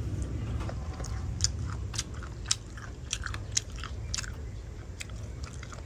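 A person eating boiled snails close to the microphone: irregular wet chewing with sharp clicks and smacks, over a steady low hum.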